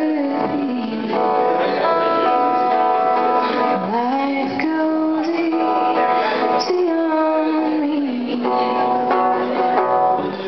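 A woman singing to guitar accompaniment, holding long notes that slide from pitch to pitch.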